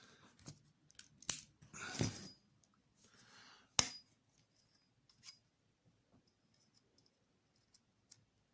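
Small screws and hand tools being handled at a workbench while the screws are measured: scattered light metallic clicks and taps, with one sharper click a little under four seconds in, and two brief rustles.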